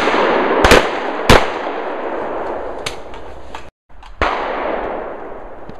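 Two shotgun shots about half a second apart, each followed by a long echo dying away through the woods. After a brief dropout, another shot with its echo.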